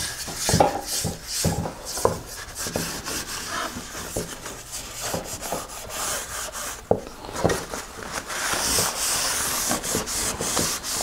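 A paper towel rubbing walnut oil finish into a carved wooden plate: continuous swishing rubs over the wood, with scattered light knocks. The rubbing gets brisker and louder about eight seconds in.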